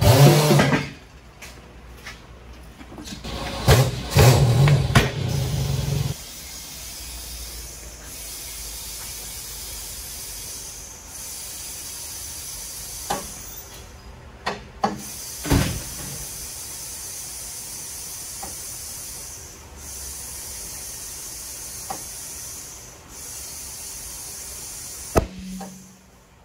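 Compressed air hissing steadily through a clip-on air chuck into a freshly mounted tire on a beadlock wheel, the flow dipping briefly now and then, with a few sharp clicks in the middle. The first six seconds hold louder, irregular knocking and rumbling.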